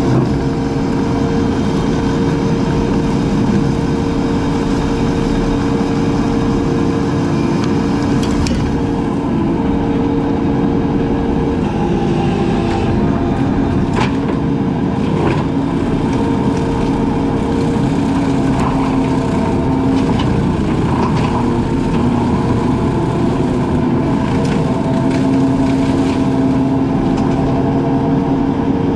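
Engine of a brush-cutting machine running steadily at a constant pitch, with a few sharp cracks of wood splitting in the middle of the stretch.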